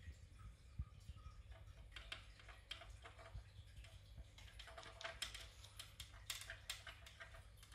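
Faint, quick clicking and rattling of dry kibble and a cat's paw on a hard plastic treat puzzle toy, coming in clusters, thickest near the end.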